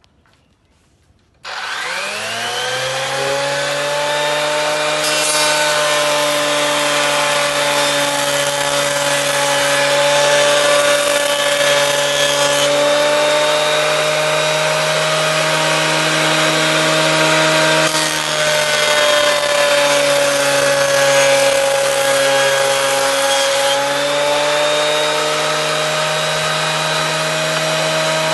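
A Hitachi planer-thicknesser's electric motor and cutterhead switch on about a second and a half in and whine up to speed within about two seconds. They then run steadily with a high whine, the pitch dipping slightly at times as boards are planed across the jointer table.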